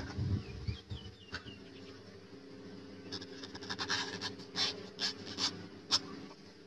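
A cleaver knife cutting through a peeled white vegetable stalk on a wooden chopping block: a run of crisp slicing strokes between about three and six seconds in, after a low thud near the start as the vegetable is set down. Brief bird chirps come about a second in.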